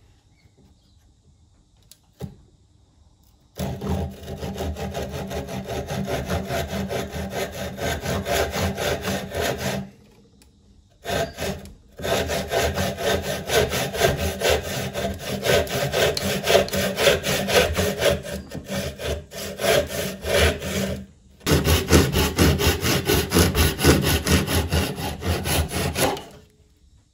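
Fine-toothed hand saw cutting a small strip of wood, a wedge blank, in quick back-and-forth strokes. The sawing starts a few seconds in and runs in three spells, broken by two short pauses.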